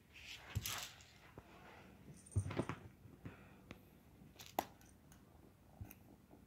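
Faint rustling with scattered light clicks and taps, the loudest cluster about two and a half seconds in and a sharp click a couple of seconds later.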